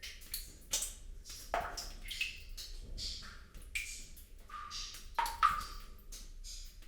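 Water drops plopping into water at an irregular pace, about one or two a second, each a short hollow plink that bends quickly in pitch.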